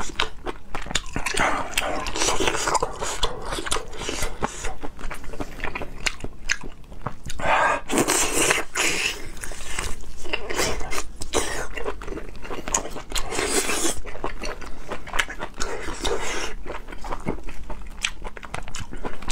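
Close-miked ASMR eating sounds: biting and chewing octopus tentacles and rice-stuffed squid, with a dense run of mouth clicks.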